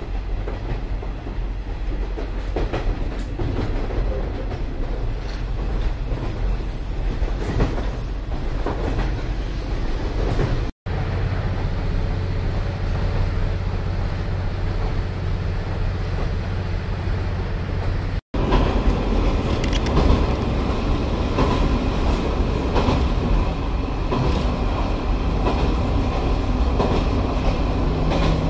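Cabin noise inside a KiHa 47 diesel railcar under way: a steady low drone of the diesel engine and running gear, with wheels clattering over rail joints. The sound drops out briefly twice.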